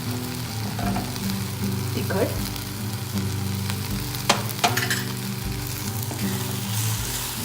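Onion-tomato masala gravy sizzling in oil in a pan as spice powders are stirred in with a spoon, with a couple of sharp clinks of the spoon against the pan about four and a half seconds in.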